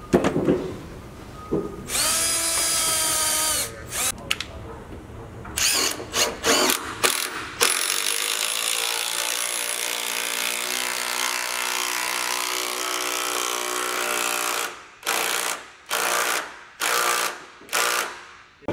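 Cordless drill running against the wooden frames and planking of a boat hull. It makes a short steady run about two seconds in and a long steady run of about six seconds from about eight seconds in, then four or five short trigger bursts near the end.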